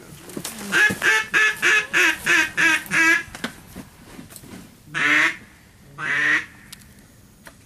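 Loud duck quacking: a quick run of about seven quacks, then two longer drawn-out quacks a couple of seconds later.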